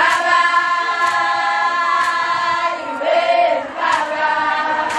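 Large group of Zulu girls and young women singing a song together, a choir of many voices with long held notes that shift pitch.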